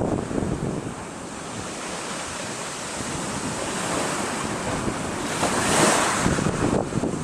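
Sea surf washing onto the beach, with one wave breaking loudest about six seconds in, and wind buffeting the microphone.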